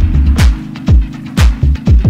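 Background music with a steady beat: a deep kick drum about twice a second, with a bass line and bright high taps between the hits.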